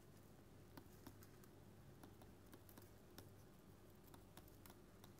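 Near silence with faint, irregular light ticks of a stylus tapping and writing on a tablet screen.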